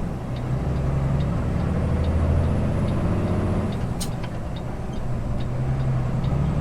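Kenworth T880 truck's diesel engine running on the road, heard from inside the cab: a low drone that swells and eases. One sharp click comes about four seconds in, over faint regular ticking.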